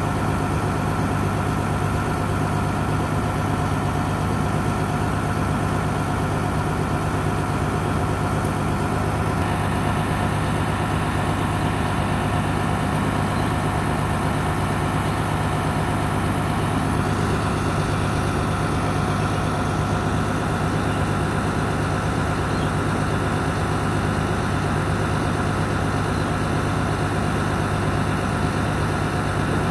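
Mobile crane's engine idling steadily, a constant low hum.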